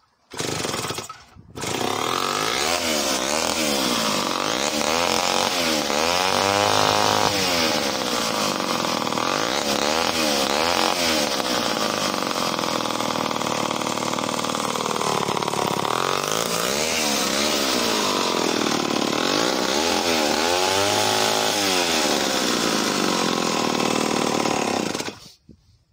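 Homelite C51 77cc two-stroke chainsaw engine pull-started, firing briefly then catching about two seconds in, then running with the throttle opened and closed several times so the pitch rises and falls, before cutting off suddenly near the end. The owner calls the saw a little lazy and down on compression, though it still starts and runs.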